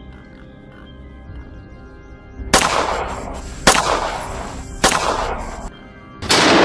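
Three gunshots about a second apart, each with a trailing echo, over background music, followed near the end by a louder noisy rush lasting about a second.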